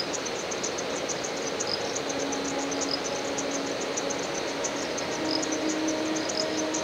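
Insects chirping in rapid, regular pulses over a steady hiss, with a faint low hum underneath.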